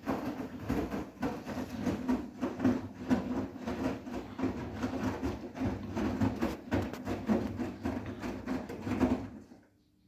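Bosch WGA252Z0TR front-loading washing machine's drum turning, with wet towels and bathrobes tumbling and thudding in an irregular run of knocks, on a 90°C quick cotton wash. The drum stops about nine and a half seconds in, leaving only a faint hum.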